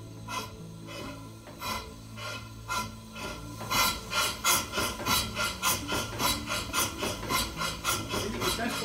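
Model paddle-wheeler steam engine running on compressed air, chuffing in a rhythm. The chuffs come slowly and unevenly at first, then from about four seconds in turn louder, faster and even, at about three a second as the engine picks up speed.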